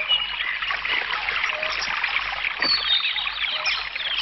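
A stream running steadily, an even babbling and trickling of water.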